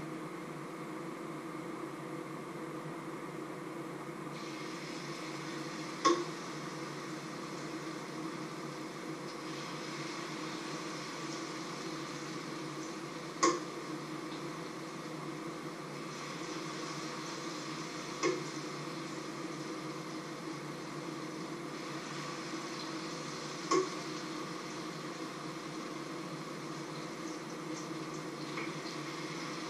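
Oil sizzling steadily in a frying pan, growing brighter about four seconds in, while a spoon scoops mixture from a metal pot. Four sharp metallic clinks of the spoon against the pot come several seconds apart.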